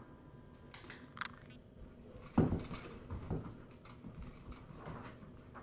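A few dull knocks and bumps in a small room, the loudest about two and a half seconds in, with lighter clicks and thumps around it.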